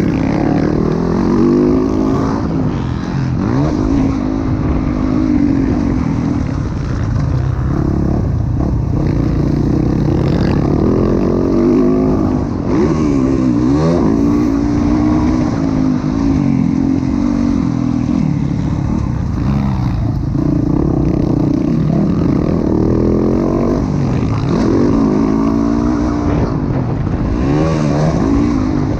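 Motocross dirt bike engine at race speed, revving up and falling back again and again as it accelerates, shifts and backs off for the turns.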